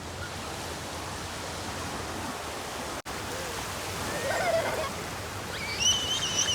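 Sea waves washing on a sandy beach as a steady rushing surf, broken by a brief dropout about three seconds in. Faint voices come in around four seconds, and near the end a shrill, high held cry sits over the surf.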